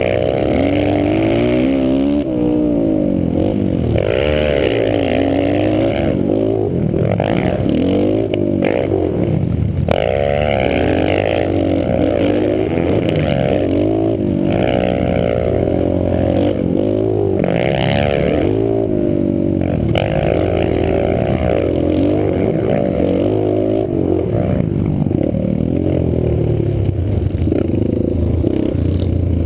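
Small pit bike engine being ridden hard, revving up and down again and again, its pitch rising and falling with each burst of throttle and each ease-off. Heard close up from a camera mounted on the bike or helmet.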